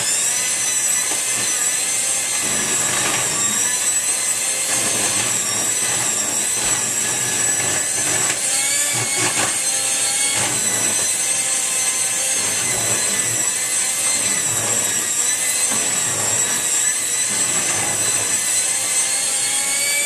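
Handheld electric mixer running steadily, its beaters whipping boiled potatoes with milk and butter into mashed potatoes in a bowl. The motor's high whine wavers slightly as the beaters work through the mash.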